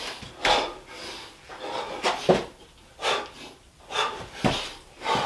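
A man panting hard with sharp, gasping breaths while doing two-pump burpees, with a couple of dull thumps as his hands and feet land on the carpeted floor.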